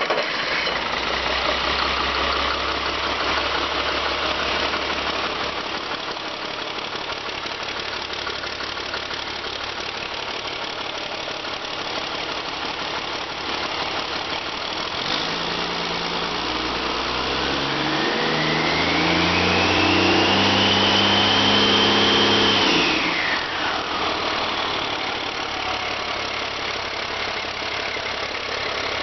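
Caterpillar C7 ACERT inline-six turbo diesel running on a test stand. It idles steadily, is revved up from about halfway through with a rising turbo whine, then drops back quickly to idle near the end.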